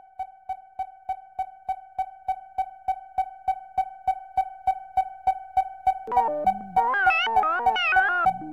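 Background synthesizer music: a single note pulsing about four times a second and growing louder, with a keyboard melody joining about six seconds in.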